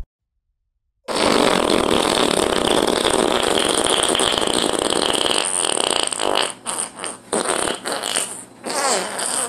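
A long, loud, raspy fart noise that starts about a second in after a moment of silence and breaks into short sputters near the end.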